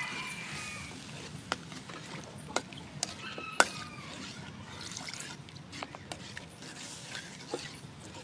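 Metal ladle clacking and scraping against a wok as a sauce is stirred: a handful of sharp clacks, the loudest about three and a half seconds in. Chickens call in the background.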